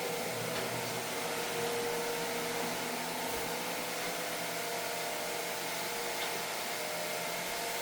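Steady whir of an electric motor-driven blower with a faint steady hum, running evenly without change.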